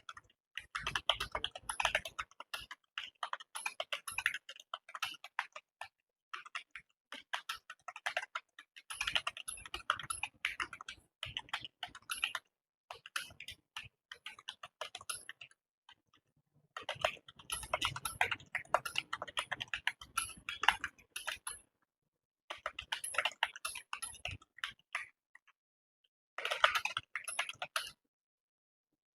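Fast touch-typing on a computer keyboard, with rapid runs of key clicks broken by brief pauses. The typist is in the middle of a timed typing test.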